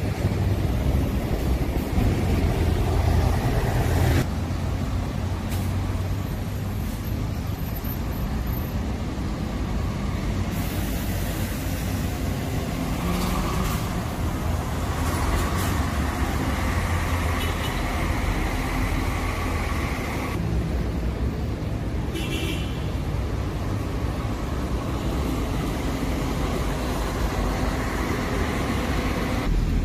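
City buses running in street traffic, their engines droning low with road noise. The sound changes abruptly every several seconds from one bus passage to the next.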